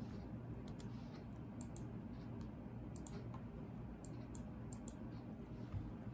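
Steady low rumble of a moving railroad caboose heard from inside, with scattered light clicks and ticks at irregular intervals.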